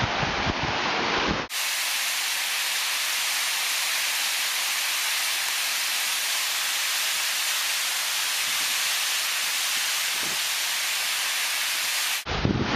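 Waterfall water rushing. At first it is close, a deep rumble with wind buffeting the microphone. About a second and a half in it cuts abruptly to a steady, even hiss of the falls with little low end, and the close rumble returns near the end.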